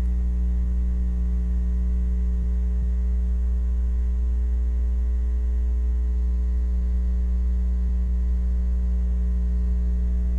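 Low, steady electrical mains hum, with no other sound.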